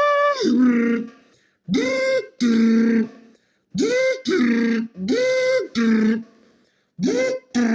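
A person's voice imitating an impact wrench undoing bolts, a mouth sound effect. It comes in repeated short bursts, often in pairs, each jumping up in pitch and then dropping to a lower held note.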